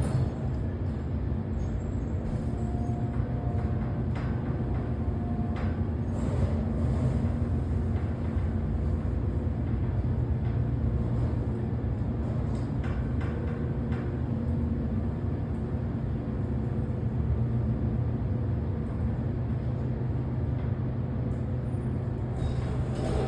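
Original 2002 hydraulic elevator travelling up a floor, its pump motor running with a steady low hum and rumble. A few faint clicks and a brief higher tone come a few seconds in.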